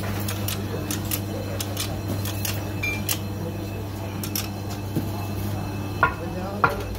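Irregular metallic clinks and taps, about one every half second to a second, from a hand wrench working the top nut of a car's coil-spring shock absorber strut, over a steady low hum. Two louder metal knocks come near the end.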